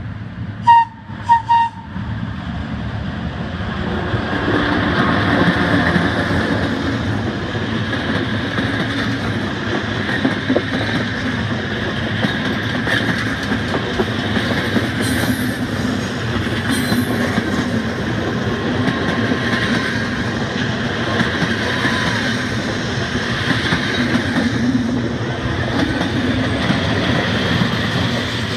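A few short horn blasts from the FS E646 electric locomotive about a second in. Then a long historic passenger train runs close past, its coaches' wheels making a steady rattle on the rails.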